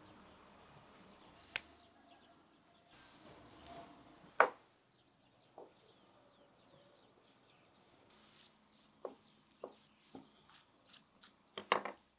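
Knife cutting raw meat on a wooden cutting board: scattered sharp knocks of the blade on the board, the loudest a little over four seconds in, with softer taps later and a quick run of several near the end.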